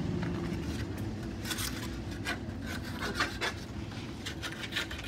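A string of irregular, gritty scrapes and crunches on gravel and concrete, over a steady low rumble.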